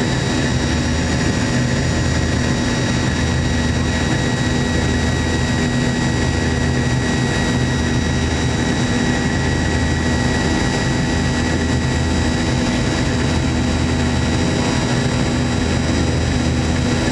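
Cabin noise of a Boeing 717 climbing after takeoff: its rear-mounted Rolls-Royce BR715 turbofans run steadily at climb power, heard from inside the cabin as a constant rush over a low hum, with a thin high whine.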